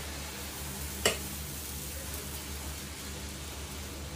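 Dosa batter sizzling on a hot cast iron tawa as it is poured and spread with a ladle, with one sharp clink about a second in.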